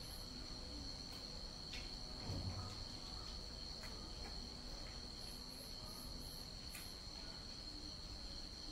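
Crickets trilling, one steady high-pitched note that does not let up, with a few fainter, higher chirps in the second half. There is a soft low knock about two and a half seconds in.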